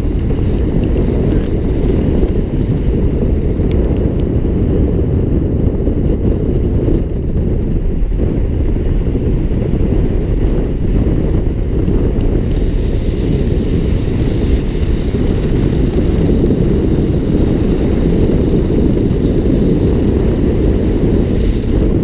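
Car driving along a road: a steady, loud low rumble of road and engine noise that does not change.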